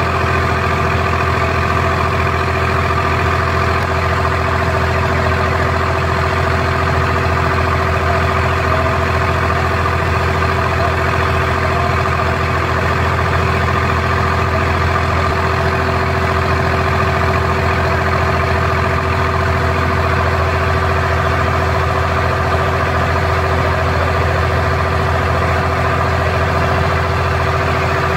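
Diesel engine of an abra, a wooden Dubai Creek water taxi, heard from on board: a loud, steady low drone with fixed hum tones, holding one speed throughout the crossing.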